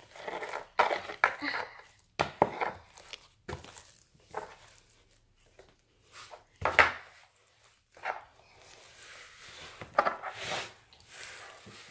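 Fluffy, crunchy homemade slime being squeezed and kneaded by hand in a plastic bowl: irregular squishing and crackling, with the occasional knock against the bowl.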